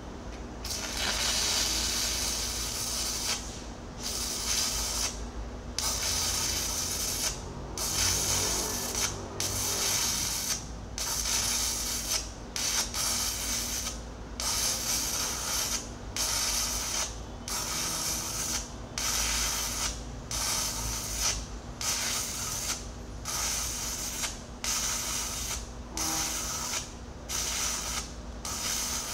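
Stick welding on a steel excavator bucket: the arc crackles and hisses in runs broken by short pauses. The runs last one to three seconds at first and shorten to about a second each from around ten seconds in.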